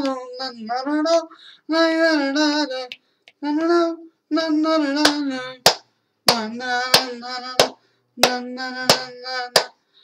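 A man singing wordless held notes in short phrases, unaccompanied, his pitch wavering in places. About halfway through, sharp hand claps join in, roughly one every two-thirds of a second.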